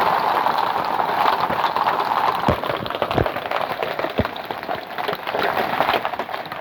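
Half-inch hailstones pelting down in a dense, steady clatter of countless small impacts, with a few louder knocks standing out about halfway through.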